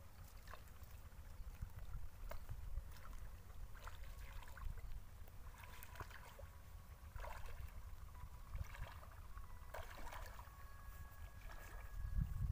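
Bare feet wading and sloshing through shallow muddy pond water in short, irregular splashes, with a louder splash near the end as the trap is lowered into the water. A steady low rumble runs underneath.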